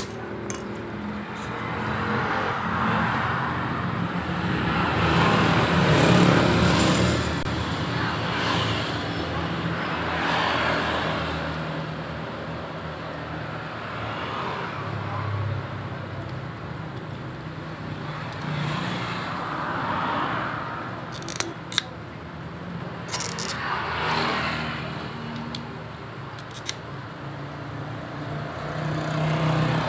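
Road traffic passing by, vehicles swelling and fading every few seconds over a low steady hum. A few sharp clicks come about two-thirds of the way through, as the plastic parts of a motorcycle fuel pump assembly are worked with a small screwdriver.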